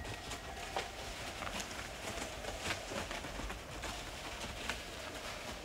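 Hoofed game, red deer and wild boar, running through dry beech leaf litter: irregular crackling and rustling footfalls.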